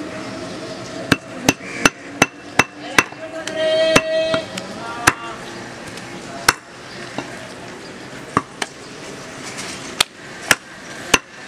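Butcher's cleaver chopping goat meat and bone on a wooden log chopping block: sharp thwacks, a quick run of about six in the first three seconds, then irregular single strikes.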